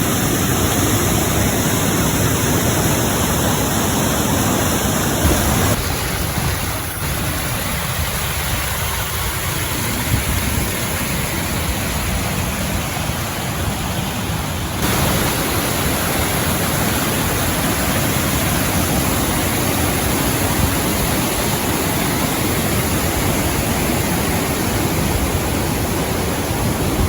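A flooded mountain stream in spate rushing over rocks: a steady, loud noise of water. Its tone shifts abruptly twice, about five and fifteen seconds in.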